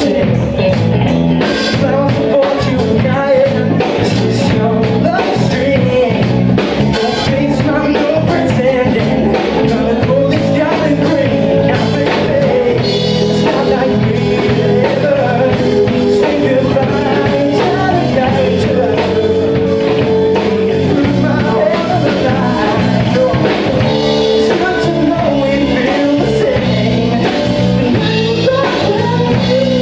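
Live rock band playing a song on electric guitars, bass guitar and drum kit, with singing.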